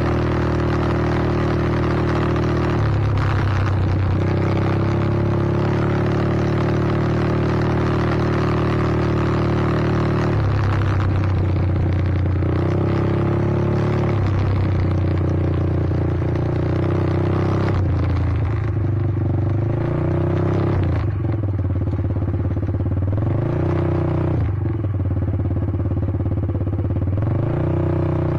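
A vehicle's engine running as it is ridden. Its pitch holds steady for stretches and shifts in steps a few seconds in and again about ten seconds in, then rises and falls repeatedly over the second half as the throttle changes.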